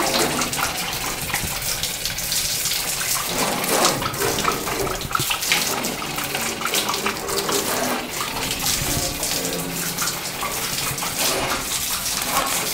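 Water spraying from a garden hose and splashing onto a tiled floor, a steady rushing hiss.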